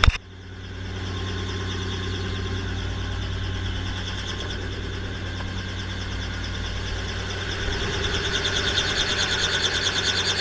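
Helicopter engine and rotor running steadily at ground idle, heard through the open cabin. A sharp knock comes at the very start, and over the last two seconds the sound grows louder with a fast, even pulsing beat.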